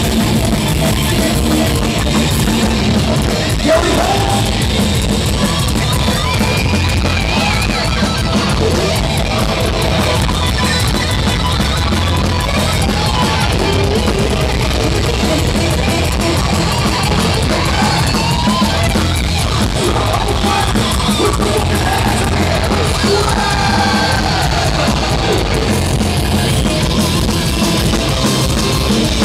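Live thrash metal band playing loud, with pounding drums, distorted electric guitars and shouted vocals.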